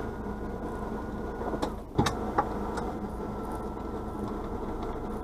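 Vehicle engine idling steadily, heard from inside the cab, with a few sharp clicks about two seconds in.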